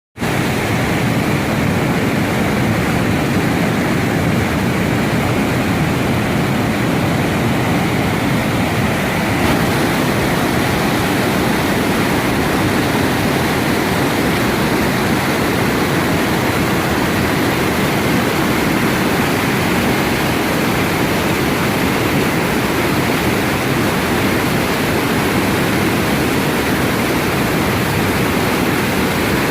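Mountain valley stream rushing over rocks: a steady, loud, unbroken flow of water.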